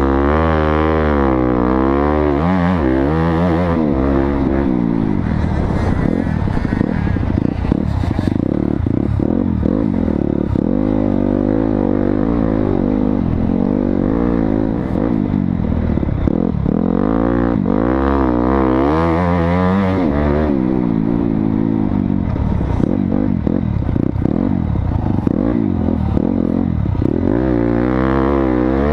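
Dirt bike engine running hard, its pitch rising and falling again and again as it is revved through the gears and backed off.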